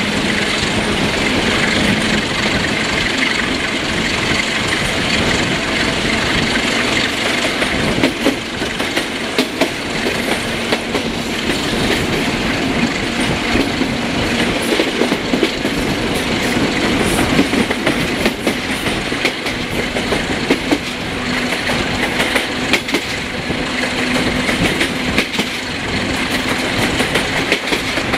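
Sulzer 12LDA28 12-cylinder diesel engine of a Romanian LDE diesel-electric locomotive running as the train travels, heard from the train together with the wheels clattering over rail joints and points and a steady rush of air.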